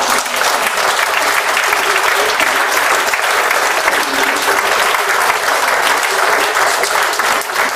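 Audience applauding: many hands clapping in a steady, unbroken patter.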